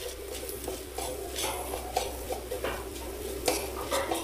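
Silicone spatula stirring dried prawns around a stainless-steel pan, scraping the metal in uneven strokes, with a light sizzle from the frying. The prawns are being stirred until the water left from washing cooks off and they turn dry.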